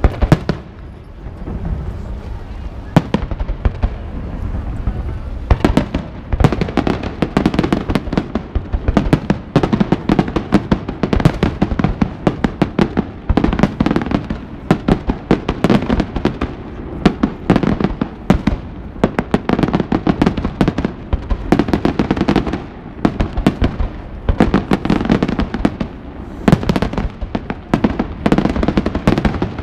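Fireworks display: aerial shells bursting in a rapid barrage of bangs and crackles, sparse at first and near-continuous from about five or six seconds in.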